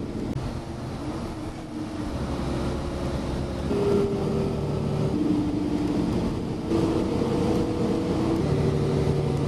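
Moving city bus heard from inside: a steady engine and road rumble, with a hum whose pitch steps up or down every second or two.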